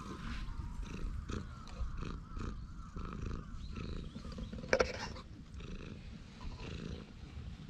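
A tabby cat purring close to the microphone as it is stroked: a continuous low rumble that swells and fades. About five seconds in there is one brief, sharp, louder sound.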